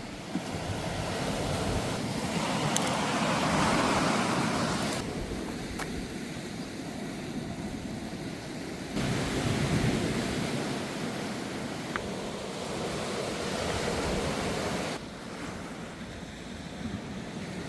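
Sea waves washing onto a beach, the surf swelling and fading, with some wind on the microphone. The level drops abruptly about five seconds in and again near the end.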